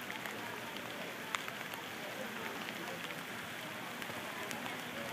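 Steady rain falling, with a few sharp ticks of drops hitting close by, the clearest about a second and a half in.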